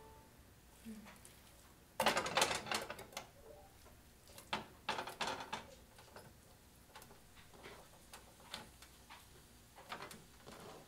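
Raw chicken strips going into hot butter in a frying pan: a loud burst of crackling sizzle about two seconds in, then shorter spurts of crackle and scattered pops as more pieces go in and are spread out.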